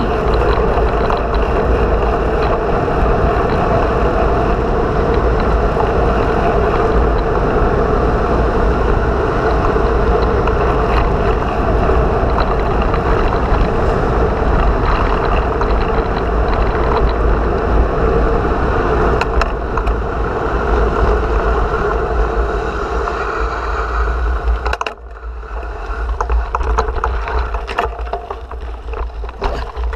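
Wind buffeting the microphone and tyre roar on asphalt during a fast bicycle descent, a steady loud rush with a low rumble. About 25 s in it drops off sharply as the bike slows on a dirt path, leaving quieter rolling noise with many small clicks and crackles.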